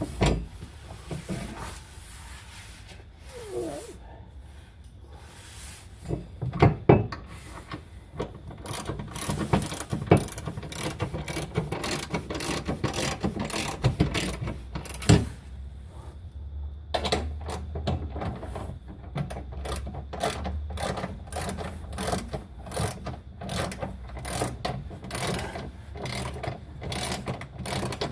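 Hand ratchet wrench clicking in quick, steady runs as bolts are tightened, with a few separate knocks in the first seconds.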